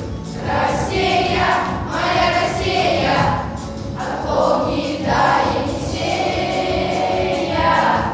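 A class of schoolchildren singing a song together as a choir over instrumental accompaniment, in phrases about a second long.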